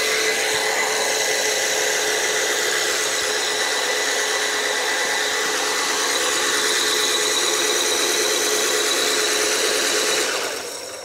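Brushless motor and drivetrain of a 1/16-scale UDI RC Panther drift car whining at a steady high speed as the car spins in tight circles, over a hiss of tyres sliding on a smooth floor. It fades away about ten seconds in.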